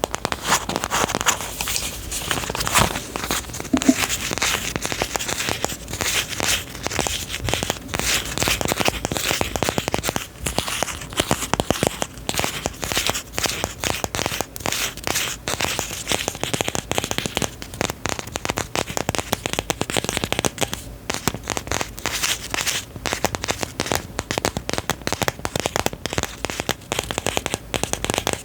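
Close-miked ASMR trigger sound: continuous dense crinkling and crackling, a fast run of small clicks and rustles.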